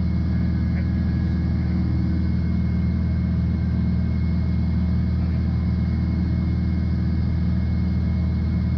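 Piper PA-46 Malibu's engine and propeller droning steadily inside the cockpit at cruise power.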